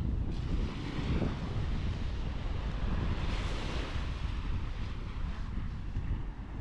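Strong wind buffeting the microphone with a heavy low rumble, over the wash of surf. A broader hiss swells and fades about three seconds in.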